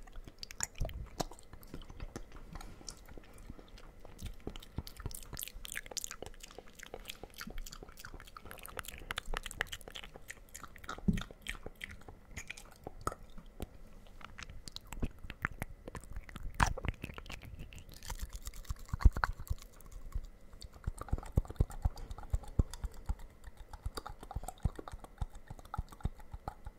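Close-miked mouth sounds: rapid, irregular wet clicks, smacks and pops from lips and tongue held right at the microphone.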